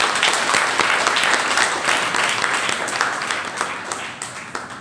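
Seated audience applauding, a dense patter of many hands clapping that thins out and fades near the end.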